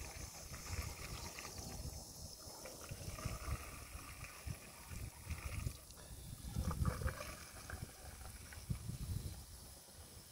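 Gasoline pouring and trickling from a red plastic gas can into a truck's tank, under gusts of low wind rumble on the microphone, loudest about seven seconds in.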